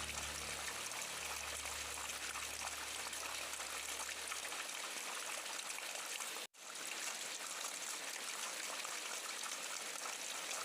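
Steady rain hiss, even and without distinct drops. A low hum fades out about halfway through, and the sound cuts out completely for a split second about two-thirds of the way in.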